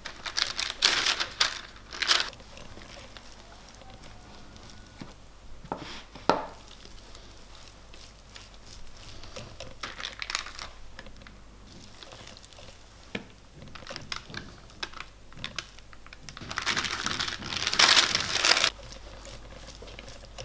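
Hands pulling apart and kneading soft, oiled yeast dough for Easter paska, with irregular bursts of crinkling handling noise, the longest and loudest a couple of seconds near the end, and a single sharp click near the middle.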